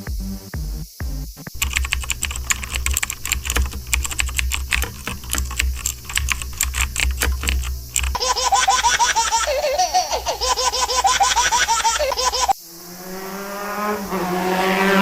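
A string of short meme sound clips. After a brief end of music, rapid clicking like computer keyboard typing runs over a low hum for about six seconds. It is followed by a warbling, chirping sound and then a steady pitched tone that grows louder near the end.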